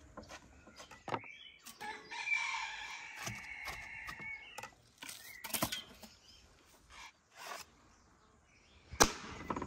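A rooster crowing once, a long held call of about three seconds, over light clicks and taps of a knife cutting watermelon on a wooden board. A sharp knock near the end is the loudest sound.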